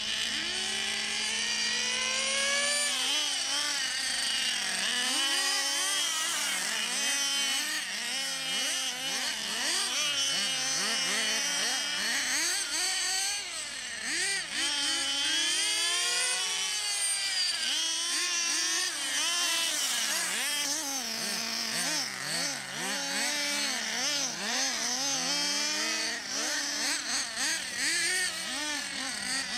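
Radio-controlled model car motors running at high pitch, rising and falling constantly as the cars speed up and slow down, with more than one pitch at times.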